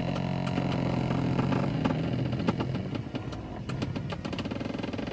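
A car's electric power-seat motor whirs steadily for about two and a half seconds as the seat moves, then stops. Scattered light clicks run through it.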